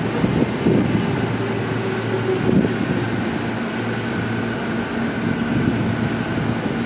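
Electric commuter train running on an adjacent track through the station: a low rumble with steady humming motor tones, and a higher whine from about two seconds in until near the end.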